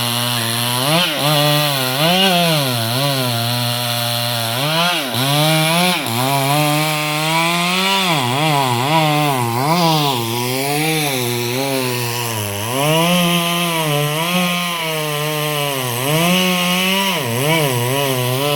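Stihl MS 382 two-stroke chainsaw cutting wood, its engine note repeatedly dipping as the chain bites and picking up again as it frees.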